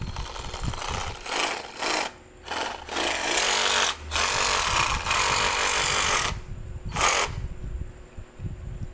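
NRT PRO TR-83DC 21 V cordless reciprocating saw run with no load in a series of trigger pulls: several short bursts, then two longer runs of about one and two seconds, and a last brief burst near the end.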